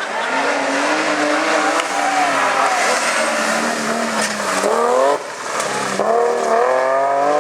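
Rally car engine revving hard, its note climbing, then dropping off briefly about five seconds in before climbing again, over loud tyre and road noise.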